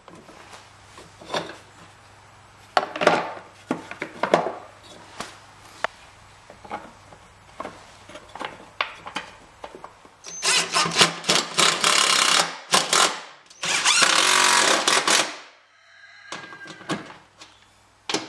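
Plastic belt covers and metal parts knocking and clicking as they are handled on a mower deck. Then a DeWalt cordless drill runs twice, each time for about two seconds, driving in a belt-cover bolt; the second run winds down at its end.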